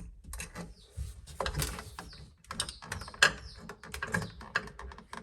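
Electrical outlet and stiff house wiring being pushed and worked into a crowded wall box: an irregular run of clicks, scrapes and rattles, with one sharp click a little past the middle.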